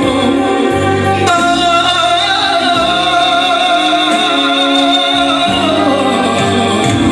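Live Romanian manele band: a man sings a long held note with vibrato into an amplified microphone over violin and electronic keyboard. The note starts about a second in and breaks off in the second half, when the melody moves on.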